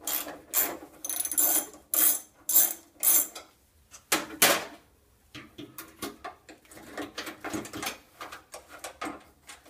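Hand tools working a bolt on the metal coil bracket and engine tin: quick runs of metallic clicking and rasping for the first few seconds, two louder rasps about four seconds in, then lighter scattered clicks.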